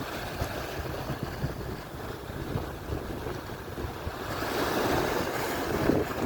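Atlantic surf breaking and washing up the shore, with one wave building to a louder wash about two-thirds of the way in. Wind buffets the microphone with a gusty low rumble.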